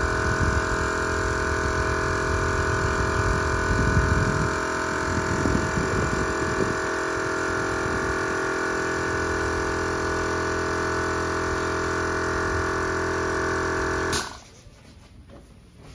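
Air compressor running steadily as it feeds a paint spray gun, then stopping suddenly near the end.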